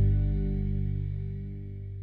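Background music: sustained notes fading out.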